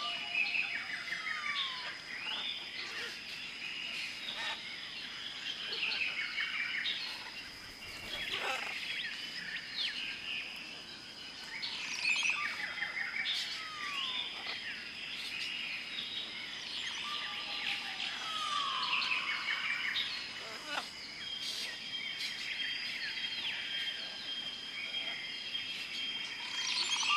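Tropical rainforest chorus: many birds calling and chirping over one another, with sliding whistles and trills, over a steady high insect drone.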